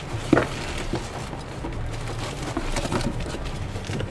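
Unboxing noises from a cardboard box and its plastic packaging: a sharp knock about a third of a second in, then scattered small clicks and rustling as a bagged part is lifted out.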